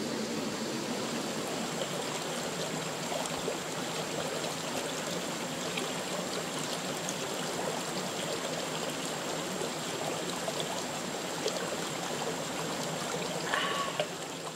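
Steady rush of a stream flowing over rocks. A brief high-pitched sound comes near the end.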